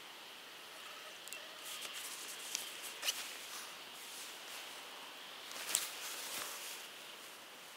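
Leaves rustling over a steady, hissy outdoor background, with scattered short crackles and clicks. The two sharpest come about three seconds in and near six seconds.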